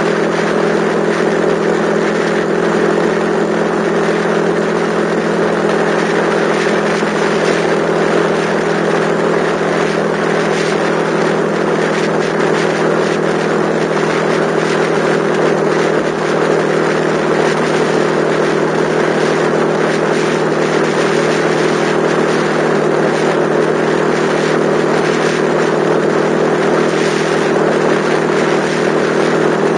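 Yamaha XTZ125's single-cylinder four-stroke engine running at a steady cruising pitch while the bike rides along at constant speed, over a steady rush of wind and road noise.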